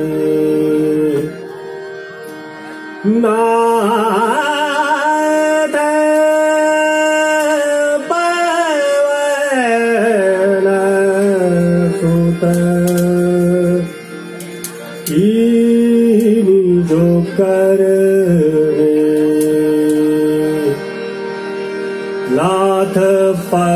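A male voice singing long held and gliding notes of Raag Hansdhwani, a Hindustani classical raga, over harmonium accompaniment. The music drops briefly quieter twice, a little after the start and midway through.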